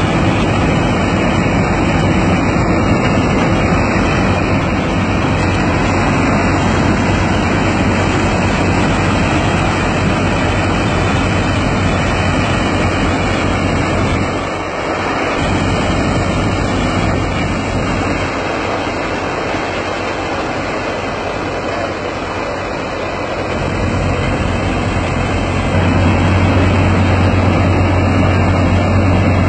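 Sonalika tractor's diesel engine driving a tractor-mounted mini combine harvester as it cuts and threshes the crop: a loud, steady mechanical din over a deep hum. It eases off for a moment about halfway through and grows louder near the end.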